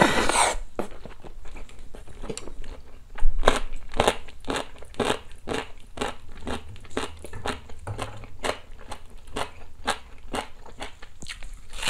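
Close-miked slurping from a bowl of seolleongtang with noodles, which ends about half a second in, then crunchy chewing with two to three crunches a second and one louder crunch about three seconds in.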